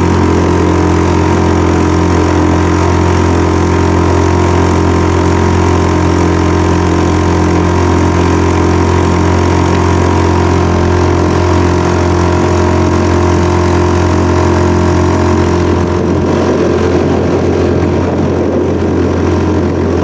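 Outboard motor running steadily with the boat under way, loud and close, its note growing less even in the last few seconds.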